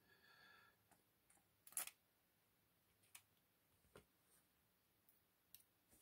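Near silence broken by a few light clicks of metal tweezers handling small lock parts, with one sharper click about two seconds in.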